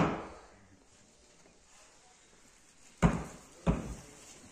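Blade chopping raw chicken down onto a wooden stump block: heavy single blows, each dying away quickly. One falls at the start, then two come about three seconds in, less than a second apart.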